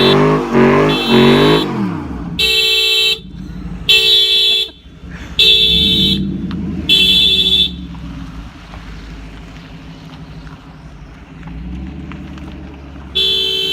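A car alarm going off. A fast warbling siren tone stops about two seconds in, and four horn blasts about a second and a half apart follow, with one more near the end. Between the blasts a V8 engine idles with a low rumble.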